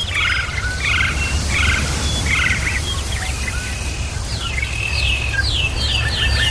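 Songbirds singing, with a chirping phrase repeated a little more than once a second, then a rapid run of short, evenly spaced notes from about four seconds in, over a steady low rumble.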